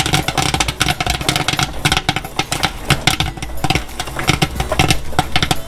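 Popcorn kernels popping fast in a theater-style kettle popper, many sharp pops a second, with the kettle's stirring motor humming steadily underneath. The batch is in full pop, popped corn spilling over the kettle.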